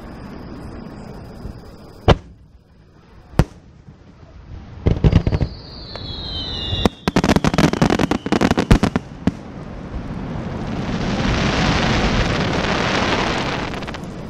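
Aerial fireworks display. Two single sharp bangs are followed by a volley of shell bursts with a whistle falling in pitch, then a rapid string of bangs. Over the last few seconds a long hiss swells and fades.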